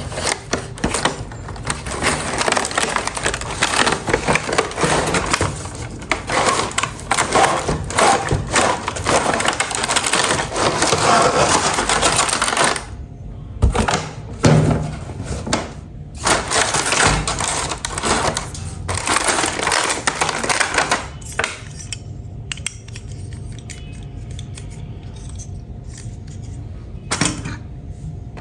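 Small plastic toy pieces clattering and clicking as they are handled, in a dense run of rattles. About three quarters of the way in it thins to scattered clicks over a faint steady tone.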